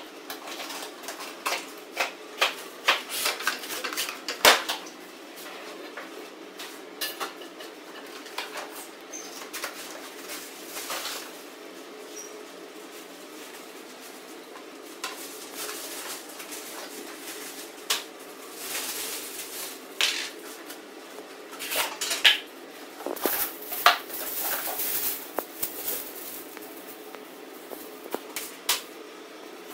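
A board game box being opened and unpacked: irregular clatters, knocks and clicks of cardboard and plastic pieces, with bursts of rustling packaging.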